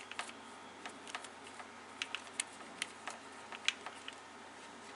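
Irregular small metallic clicks and ticks as a twist drill bit is handled and the drill's chuck is turned and tightened by hand.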